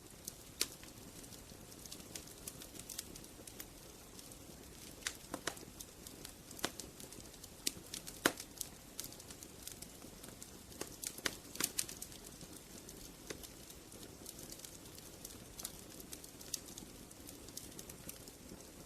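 Wood fire crackling: irregular sharp pops and snaps over a steady low hiss of burning.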